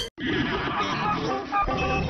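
Music from a TV channel ident, played back pitched up. It drops out for an instant right at the start, where one ident cuts to the next.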